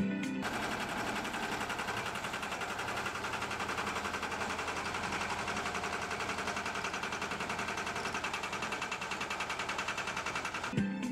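Bobcat M611 skid-steer loader's engine running steadily with a rapid, even mechanical clatter as the loader works.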